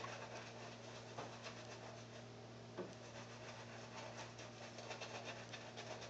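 Shaving brush working lather onto a stubbly face, a soft scratchy rubbing of bristles on skin in quick repeated strokes, over a steady low hum.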